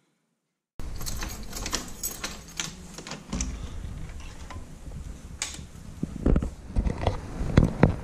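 A brief silence, then handling noise with many small clicks and knocks as a door is opened past a curtain, followed by a few heavier footfalls stepping out into snow near the end.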